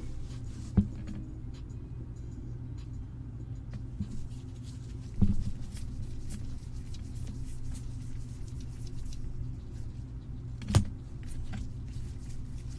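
Trading cards being handled and flipped through by gloved hands, with soft slides and ticks over a steady low hum. Three sharp knocks: about a second in, about five seconds in, and near eleven seconds.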